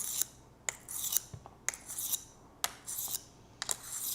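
Rolling knife sharpener's ceramic honing disc rolled back and forth along a knife edge to polish it. The strokes come about once a second, each a sharp click followed by a short, high, gritty hiss.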